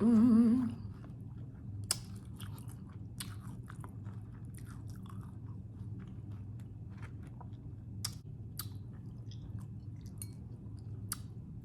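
Close-up chewing of crunchy hard-shell tacos: scattered crisp crunches and wet mouth clicks, opening with a brief wavering hummed "mmm".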